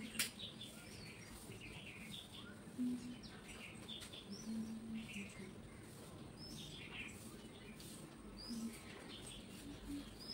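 Small birds chirping, short high chirps every second or so, with a sharp click just after the start.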